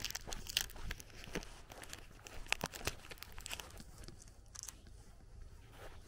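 Footsteps crunching on a dirt and gravel lane, uneven crunches every half second or so, over a low background rumble.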